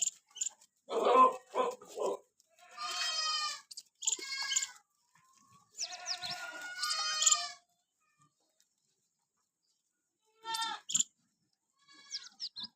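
Goats bleating: a series of separate calls, two of them long and drawn out, with shorter, rougher cries between them.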